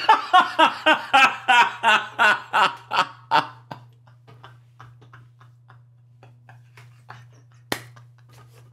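A man laughing in a run of rhythmic pulses, about three a second, loud for the first few seconds and then trailing off into fainter ones. A single sharp click near the end, over a steady low electrical hum.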